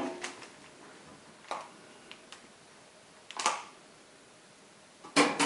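Scattered short knocks and rustles of workbench handling, a tool and a tissue being picked up and set down, a second or two apart, with the loudest pair near the end.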